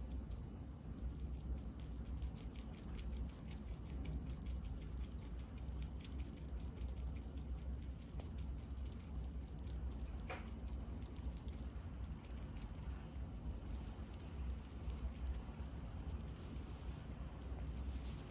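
A sugar glider eating, with many small, quick clicks from nibbling and chewing its food, over a steady low hum.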